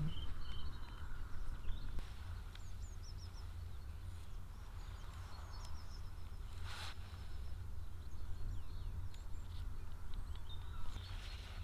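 Outdoor ambience: a steady low rumble of wind on the microphone, with small birds chirping now and then. There is one brief knock about seven seconds in.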